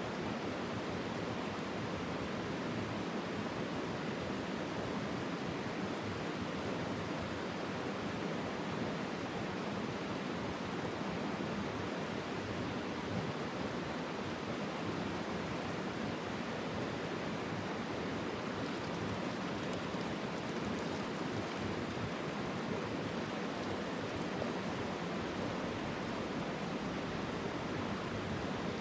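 Steady rushing of a mountain stream's water, an even hiss that does not change.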